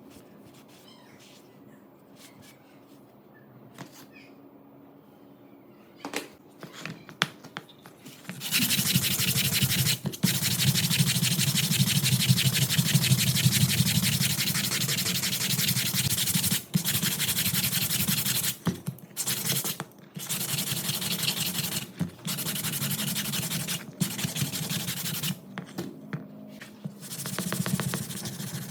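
A few light knocks, then sanding starts about eight seconds in. It runs steadily and loudly, broken by several short pauses.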